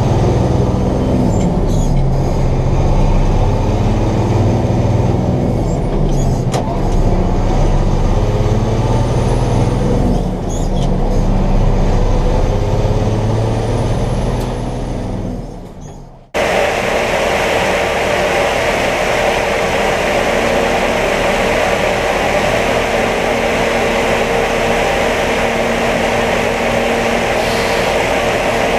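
Combine harvester running: first an engine whose pitch shifts up and down, fading out about halfway, then after an abrupt cut a steady machine drone with a constant hum.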